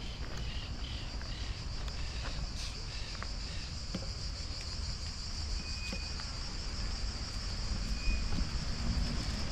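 Steady, high-pitched insect drone, the shrill chorus of cicadas or crickets, over a low rumble. Two brief high whistles sound about six and eight seconds in.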